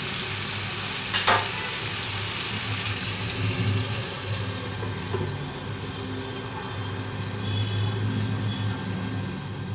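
Chicken pieces frying in oil and butter in a non-stick pan, a steady sizzle. One knock about a second in, and a glass lid goes on over the pan a few seconds in.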